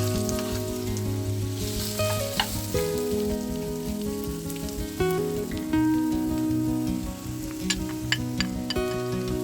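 Food sizzling in hot oil in a frying pan and being stirred, with sharp clicks of the utensil against the pan, a few of them about two seconds in and a cluster near the end. Soft background music plays underneath.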